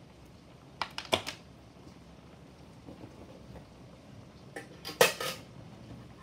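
Small hard objects being handled, clicking and clattering: a couple of sharp clicks about a second in, then a louder burst of knocks around five seconds in.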